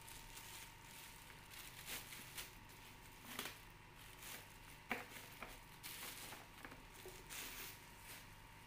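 Clear plastic wrapping crinkling and rustling in irregular bursts as it is pulled off a padded tricycle seat, with a sharper crackle about five seconds in.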